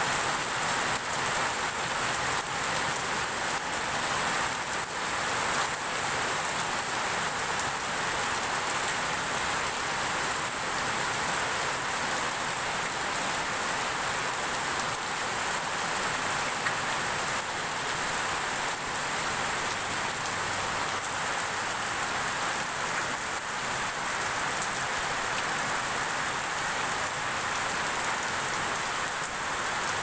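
Heavy rain falling steadily: a dense, even hiss of drops with no breaks.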